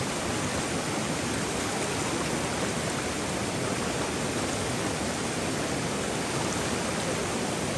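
Steady rushing of a swift, shallow river flowing fast over stones.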